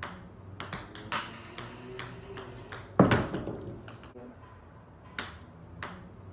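A quick, irregular series of sharp, ringing pings, about a dozen, with the loudest strike about three seconds in.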